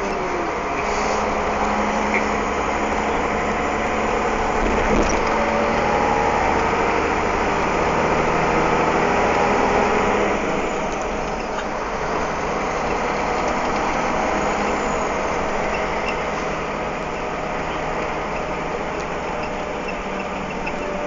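Truck engine running and road noise heard inside the cab while driving, a little louder for the first ten seconds, then easing off slightly.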